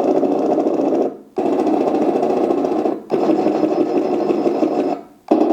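Machine-gun sound effect from an RC tank's TK26 sound board played through its small speaker: rapid rattling fire in three bursts of about one and a half to two seconds, with a fourth starting near the end.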